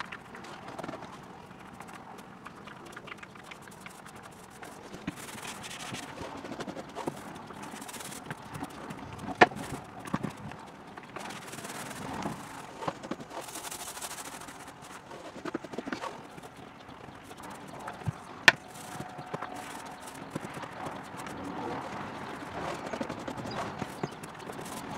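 Small paint roller rolling primer onto a boat's fiberglass floor, a soft uneven scrubbing and hissing, with a few sharp knocks from the tools about nine, ten and eighteen seconds in.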